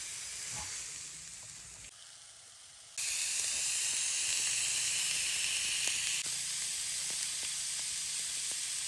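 Seasoned fish sizzling on a hot ridged grill plate: a steady frying hiss that dips quieter for about a second around two seconds in, then comes back louder.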